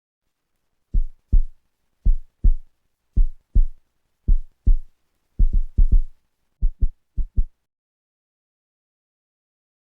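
Heartbeat sound effect: deep double thumps in lub-dub pairs about once a second, quickening briefly, then stopping.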